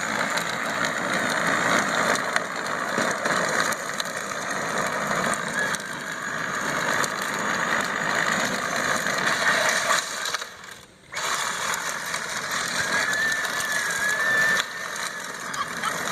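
A vehicle engine running, with mechanical rattling. The sound drops out briefly about ten and a half seconds in, then resumes.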